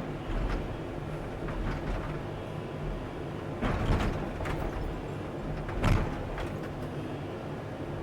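Excavator engine running steadily, with a few short clunks and clatters; the loudest come about four and six seconds in.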